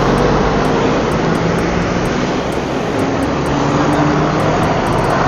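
Heavy road traffic passing close by: a large cargo truck and motorbikes, a steady rush of engine and tyre noise with engine hums that shift in pitch.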